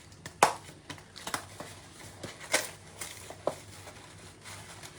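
Handling noises as green tea is put into a pot: a few sharp clicks and crinkles, the loudest about half a second and two and a half seconds in.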